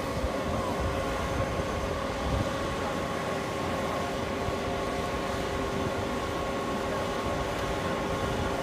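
100 HP rubber-tracked tractor running steadily as it pulls its rotary tiller through a flooded, muddy field: a constant engine drone with a few held tones.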